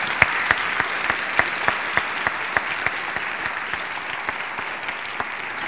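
Audience applauding, with a few louder single claps standing out; the applause slowly dies down.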